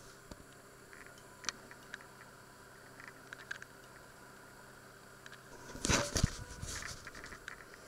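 Egg and butter frying in a hot steel pan: a soft sizzle with small scattered crackles and pops. About six seconds in, a louder burst of rustling knocks as the camera is handled.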